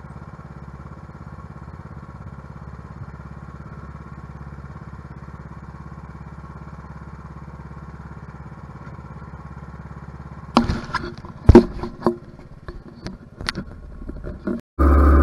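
Ariens riding mower's engine running steadily and faintly. About ten seconds in there is a run of knocks and clicks as the GoPro is picked up and handled. Just before the end the sound switches suddenly to the mower engine running loud and close.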